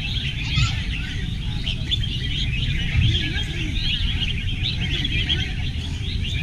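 Many caged red-whiskered bulbuls singing at once: a dense chorus of short, overlapping chirps and warbles, over a low background rumble.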